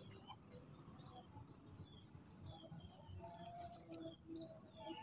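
Faint bird chirps, short high notes repeating here and there over quiet outdoor background noise, with a thin steady high tone underneath.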